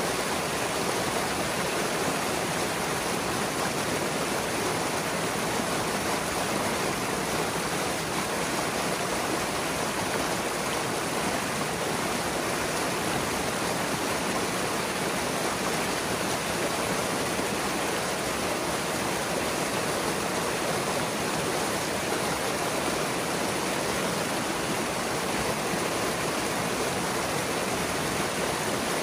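Beaver pond water rushing steadily through a gap in the beaver dam and pouring into a churning, foaming pool below: the flooded pond draining.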